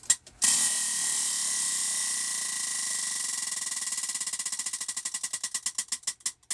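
Prize wheel spinning, its pointer flapper clicking against the pegs: rapid ticks that run together at first, then slow to separate clicks as the wheel coasts down and stops about six seconds in.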